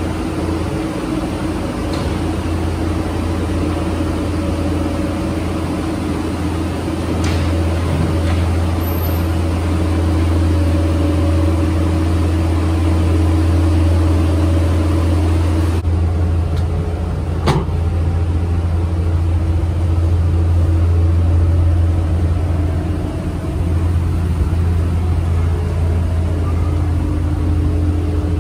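Steady low mechanical drone of a running vehicle, with a single sharp knock about seventeen seconds in.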